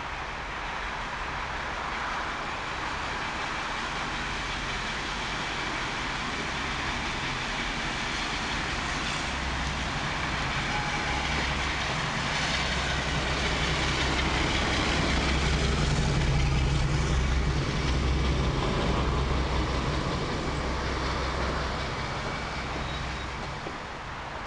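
British Rail Class 52 'Western' diesel-hydraulic locomotive D1062 Western Courier, its twin Maybach V12 engines running as it approaches and passes along the platform. The low engine rumble builds to its loudest about two-thirds of the way through, then fades as the locomotive goes by.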